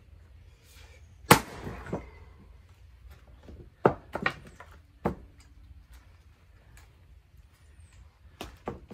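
Hardwood firewood being split by hand: one loud strike of the splitting tool into a round about a second in, with a short clatter after it, then several lighter wooden knocks, with two more near the end. Faint bird chirps in the background.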